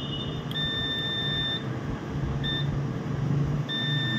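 Digital multimeter's continuity beeper sounding three times as the probe tips touch motherboard connector pins: a beep about a second long, a short blip, then another long beep starting near the end. Each beep signals a near-zero-resistance path between the probed points during the cold test.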